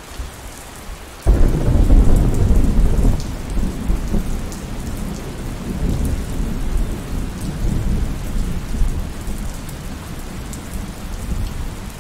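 Steady heavy rain hissing on the ground. About a second in, a thunderclap breaks in suddenly and rolls on as a long low rumble that slowly fades.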